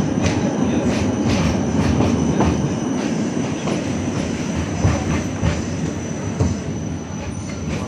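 Tram running along street track, heard from on board: a steady rumble of wheels on rails with irregular clicks from the track, and a thin high tone held throughout.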